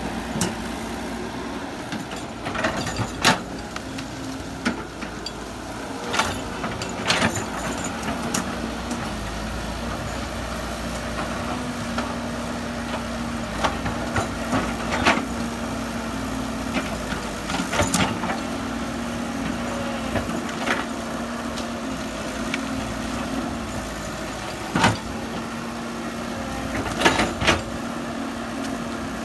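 Excavator's diesel engine running steadily, with sharp knocks and clanks now and then.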